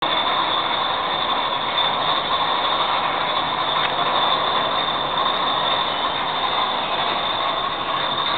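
Beer bottling line running: steady machine noise from the conveyor and filling machinery, with a constant high whine and a few faint clicks.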